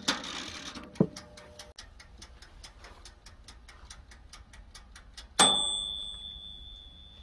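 Toaster oven's clockwork timer: the knob is turned with a knock, then the timer ticks rapidly, about six ticks a second, and about five seconds in its bell dings once and rings on as it dies away.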